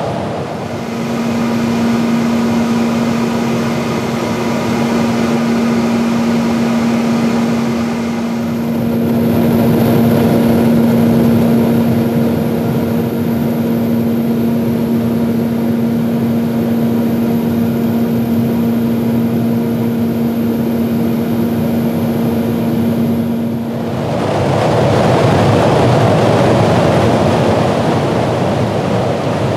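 Aircraft engine drone heard in flight: a steady low hum, joined by a high whine from about 8 seconds in, over loud rushing air. The engine tones cut off about 24 seconds in, leaving only rushing wind noise.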